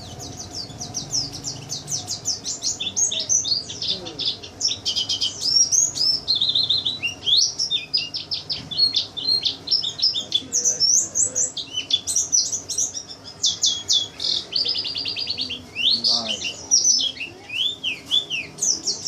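Pleci (white-eye) songbird singing: a long, rapid, high twittering song of quick chirps and fast trills, with a couple of brief lulls.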